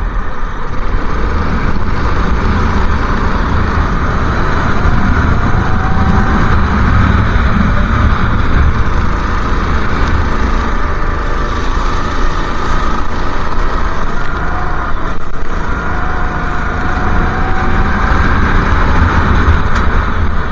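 Go-kart engine running at racing speed, recorded on board, its note rising and falling between corners over a loud, steady rush of noise.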